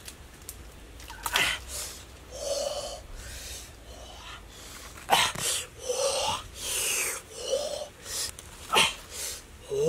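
Stiff pineapple leaves rustling and swishing as hands push through the plants and handle fruit, in a string of short, irregular bursts with a few sharper ones.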